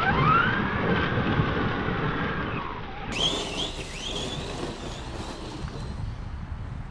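Brushless electric motor of a Losi Lasernut RC truck whining as it accelerates, the pitch rising quickly, holding for about two seconds, then falling away. Past the halfway mark come a few short, high rising chirps over fainter running noise.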